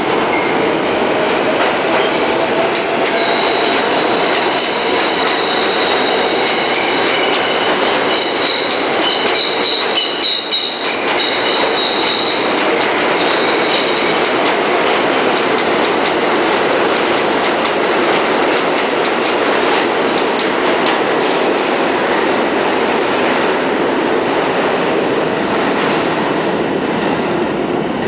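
New York City subway train of R142A/R142 cars running along a curved track: a loud, steady rumble with wheels clattering over the rail joints throughout. A high-pitched squeal from the wheels on the curve runs for roughly the first half.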